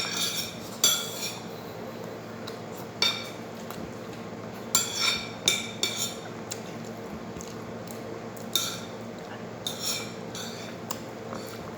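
Cutlery clinking and scraping against a plate during a meal, in short bursts of sharp clinks several times over.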